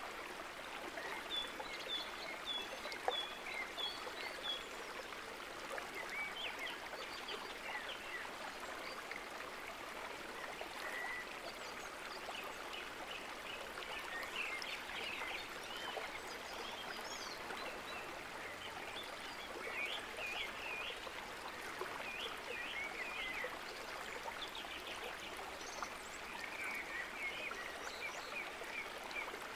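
Steady flowing water, with small birds chirping over it in short repeated notes and quick twittering phrases.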